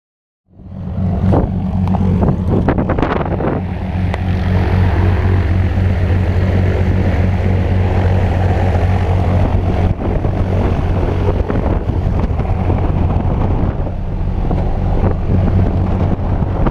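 The engine and propeller of a single-engine jump plane running steadily on the ground, a loud, even drone. It starts abruptly about half a second in, with a few knocks in the first few seconds.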